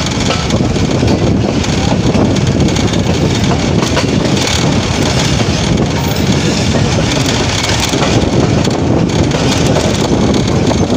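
Passenger train running along the track, heard from its open doorway: a steady, loud rumble of wheels on rails.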